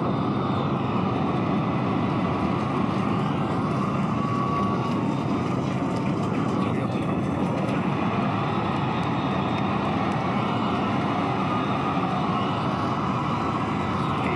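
Steady roar of the Starship Super Heavy booster's Raptor engines at ignition and liftoff.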